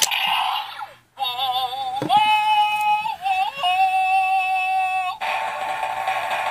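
Electronic sound effects from a Bandai DX Zyuoh The Light toy morpher's speaker. A short noisy burst, a brief gap, then a warbling tone that swoops up into held synthetic notes, and a dense noisy rush from about five seconds in.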